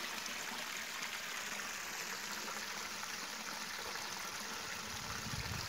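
Steady trickle and rush of shallow river water flowing over rocks.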